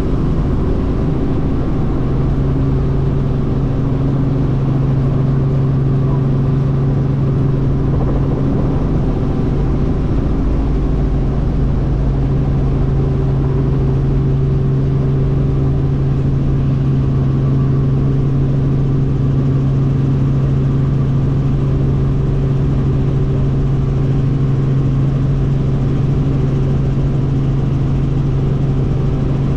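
Robinson R44 helicopter's piston engine and rotors running at flight power, heard from inside the cabin as a loud, steady drone with a strong low hum, as the helicopter lifts off and climbs out.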